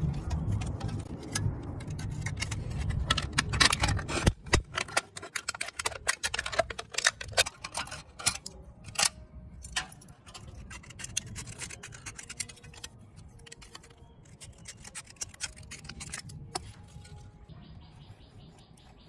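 Thin aluminium from a drink can being handled and crinkled by hand: a dense run of sharp clicks and crackles over a low rumble for the first few seconds. After about ten seconds it thins out into lighter taps and scraping of metal tools against the sheet.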